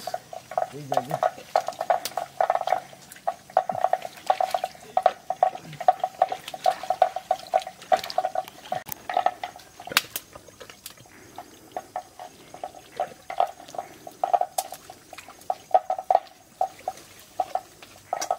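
Hands splashing and squelching through mud and shallow muddy water while groping for fish, in many short, irregular splashes, with now and then a clink against a metal bucket.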